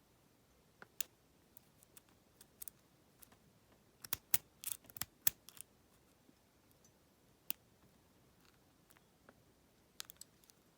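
Lock pick and tension wrench working the pin stack of a Federal PL90PE lockout padlock: scattered light metallic clicks, busiest about four to five and a half seconds in, with a few more near the end.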